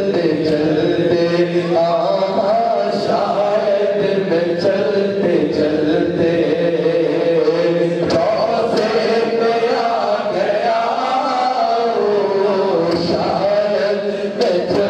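A man singing a naat, an Islamic devotional poem, in long melodic phrases whose pitch glides and wavers, sung close into a handheld microphone.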